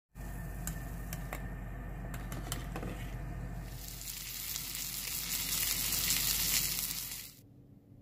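Water bubbling in a pot with a few light clicks, then battered chicken pieces frying in oil in a pan: a loud, steady sizzle from about halfway that cuts off abruptly just before the end.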